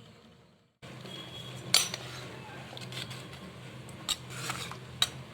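Kitchen dishes and utensils clinking: a handful of sharp clinks and clatters, the loudest just under two seconds in, over a low steady hum.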